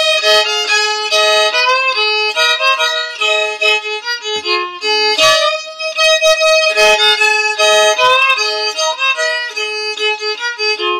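Solo fiddle bowing the first-part phrase of an old-time tune in the key of A, with an open string droning under the melody in double stops. The phrase is played through twice, starting over about halfway.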